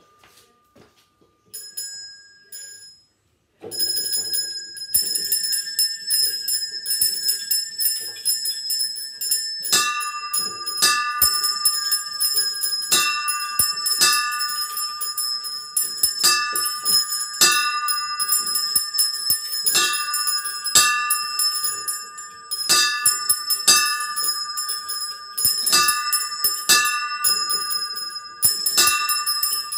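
Small bronze bells of a home-built miniature bell tower ringing. After a near-silent start and a few single strokes, a fast continuous peal of several bells at different pitches starts about three and a half seconds in, and from about ten seconds a lower bell joins, striking roughly once a second.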